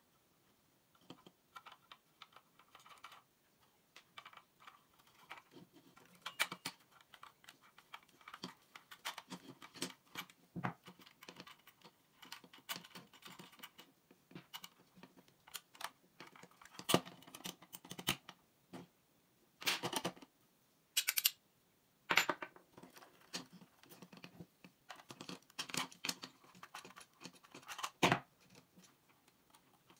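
Irregular small clicks, taps and scrapes of hand disassembly of a twin-bell alarm clock: small metal nuts and parts handled and set down and needle-nose pliers working on the bell mounts, with several louder sharp knocks in the second half.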